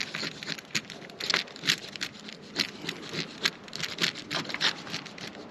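Hand-held blade scraper scraping cured Sikaflex sealant off a fibreglass hull along the rubbing strake line, in short, irregular strokes several a second.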